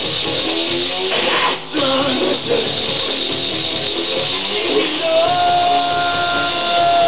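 Live electronic rock song played by a band, with a male singer into a microphone. A long held note comes in about five seconds in and carries on to the end.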